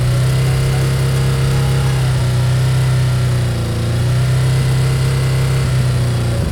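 Ducati Hypermotard 950's L-twin engine through Austin Racing slip-on silencers, held at a steady engine speed with the exhaust note constant in pitch and dipping slightly about halfway before recovering.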